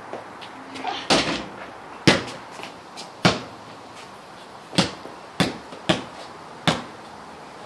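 A basketball bouncing on a concrete floor as children dribble it: about seven separate bounces at uneven spacing.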